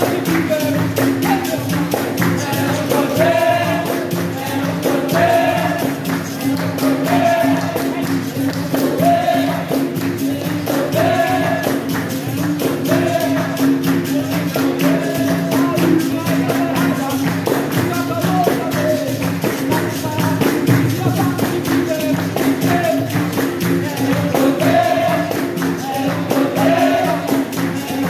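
Capoeira roda music: berimbaus, pandeiro jingles and drumming in a steady rhythm under call-and-response group singing, with sung phrases coming about every two seconds.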